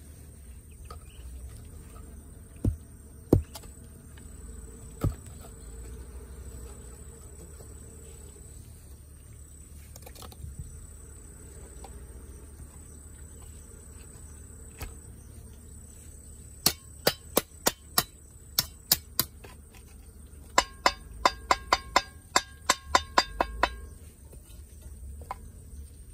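A tool striking hard: a few separate knocks, then a run of about eight strikes, then a faster run of about four a second whose strikes ring. Under it, a steady high insect buzz.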